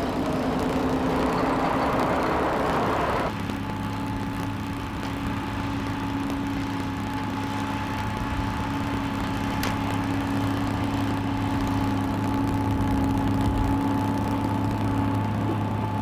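Heavy diesel engine of a motor grader running steadily. About three seconds in, the sound changes abruptly from a harsher, noisier running to a smoother steady hum with a low drone and a faint whine on top.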